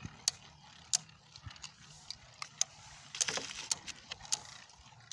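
Two Beyblade Burst spinning tops whirring in a plastic stadium, with sharp clacks as they collide every half second or so and a quick flurry of hits about three seconds in.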